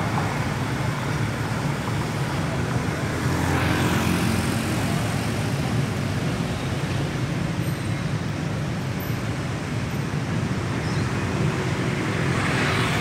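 Steady low rumble of engines and road traffic, swelling briefly about four seconds in and again near the end.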